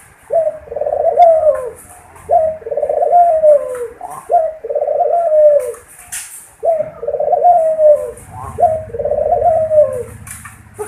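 Puter dove cooing: five rolling coos about two seconds apart, each opening with a short sharp note and sliding down in pitch.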